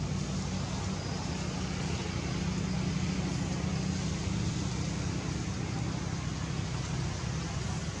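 Steady low rumble with an even hiss over it, unchanging throughout, with no distinct calls or knocks.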